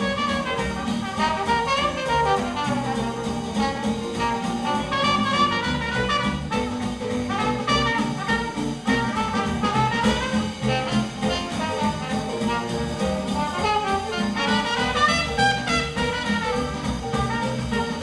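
Small Dixieland jazz band playing live: trumpet and trombone blowing melodic lines together over a steady beat from a drum kit and rhythm section.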